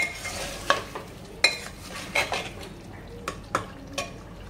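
Steel ladle stirring mutton and yogurt masala frying in oil in a pressure cooker pot: repeated scrapes and knocks of the ladle against the pot over a low sizzle.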